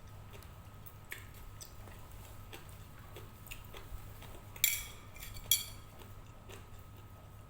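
Metal cooking utensils clinking: scattered light ticks, then two sharp ringing clinks about a second apart a little after the middle.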